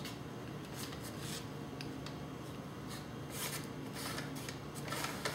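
Icing spatula spreading chocolate frosting around the sides of a cake on a turning cake stand: a string of brief, soft scraping strokes over a faint steady hum.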